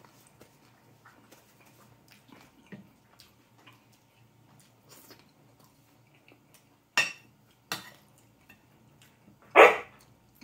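Tableware handled at a table: faint small ticks, then two sharp clinks a little under a second apart about seven seconds in, and a louder knock near the end.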